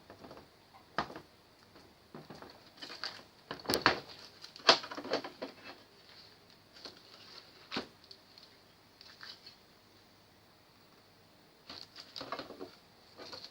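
Irregular clicks, taps and rustles of parts being handled in work on an LED TV. The loudest cluster comes about four to five seconds in, and there is a quiet stretch of about two seconds before a last cluster near the end.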